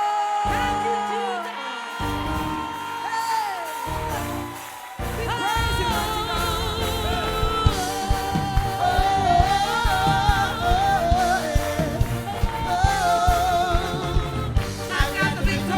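Gospel music from a church band: held keyboard chords, then about five seconds in a steady drum beat and the full band come in under a singing voice.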